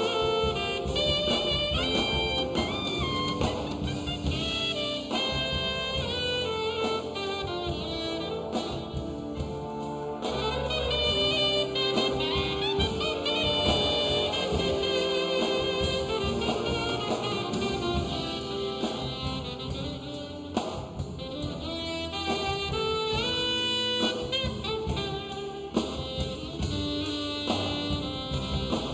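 Big band jazz with saxophones, trumpets and brass over a drum kit, played live.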